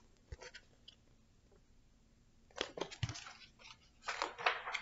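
Soft rustling and handling of a paperback picture book's paper pages as it is moved and turned, with a few light taps.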